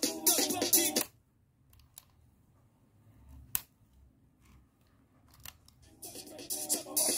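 Music from a cassette in a Sony WM-EX382 Walkman, played through a small speaker, stops abruptly about a second in. A few sharp clicks of the Walkman's side buttons follow, the loudest near the middle. The music starts again about a second before the end.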